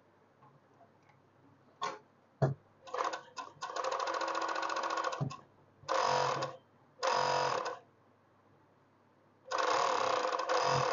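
Two-Lion industrial four-thread overlock (serger) machine stitching fabric at high speed in bursts. A couple of sharp clicks come about two seconds in, then the machine runs for about a second and a half, gives two shorter bursts, pauses, and starts running again about a second before the end.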